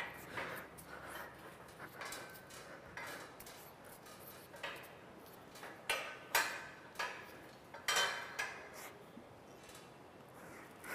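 Light metallic clinks and knocks from steel overhead bars as a person hangs from them and shifts his grip, a dozen or so at irregular intervals.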